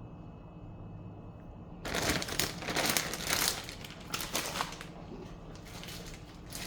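A plastic bag crinkling and rustling as it is handled, loudest from about two seconds in for about three seconds, then dying down to faint handling noise.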